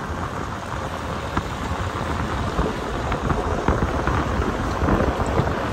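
Steady rushing wind and road noise of a car driving along a mountain road, with a slightly wavering level.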